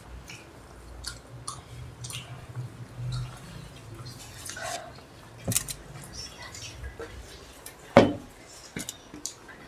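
Eating of Maggi instant noodles: scattered chewing, slurping and small wet sounds, with cutlery clicking on plates and one sharp, loud knock about eight seconds in.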